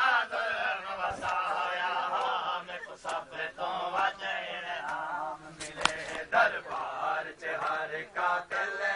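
Chanting of a Shia mourning lament (noha), with sharp slaps of hands striking chests at uneven intervals: matam.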